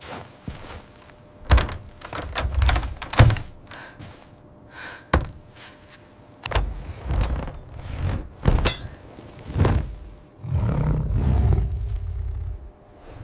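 A series of irregular thuds and knocks, a dozen or so spread unevenly, with a low rumble lasting about two seconds near the end.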